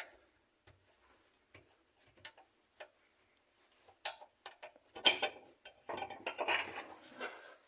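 A few faint metallic ticks, then from about four seconds in a run of sharp clinks and rattles, loudest about five seconds in: a spanner and steel bolt being worked loose. This is the last of four bolts holding the tail housing to the rear differential.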